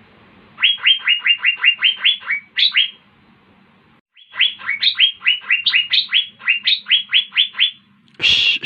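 Asian fairy-bluebird (cucak biru) singing: two fast runs of short, sharply rising notes, about five a second, with a pause of about a second between them. Near the end comes a loud, noisy burst.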